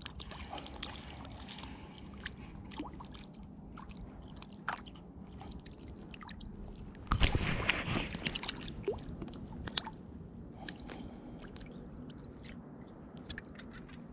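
A hooked black sea bream splashing at the water's surface while being played on a line: one loud splash about seven seconds in, with faint small clicks and water sounds either side.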